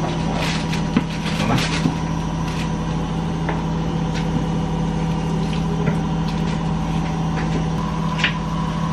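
Steady hum of a running kitchen appliance motor, with a few light clicks and knocks of cookware on the gas stove.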